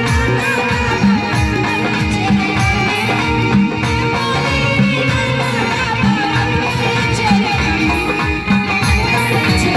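Loud instrumental passage of a Bollywood-style song, with a steady beat of deep drum hits under plucked strings and other instruments, and no singing.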